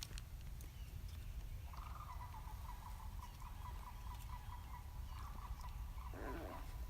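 Wild birds calling: one gives a fast series of short, evenly repeated notes, about four or five a second, for several seconds, and near the end a louder rattling call cuts in. A steady low rumble runs underneath.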